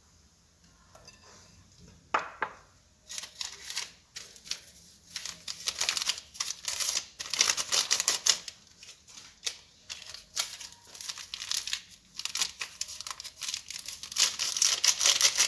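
A small sachet of baking powder being handled and shaken out over a bowl: a rapid, irregular run of crackles and rustles that starts about three seconds in and goes on, after a single click just past two seconds.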